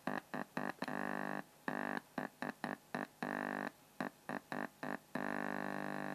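Buzz from a small speaker driven by a home-built TDA2003 amplifier kit, cutting in and out abruptly as a fingertip touches the bare input wire. There is a string of short blips and several longer buzzes of up to about a second. The buzz is mains hum picked up through the finger, the usual sign that the amplifier is live and amplifying.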